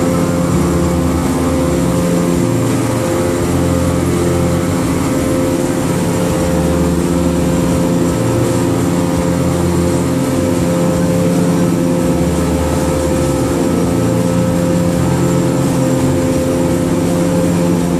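Mercury outboard motor of a Pro-Line 2610 center-console boat running steadily at cruising speed, with the rush of wind and water as the hull moves across the bay.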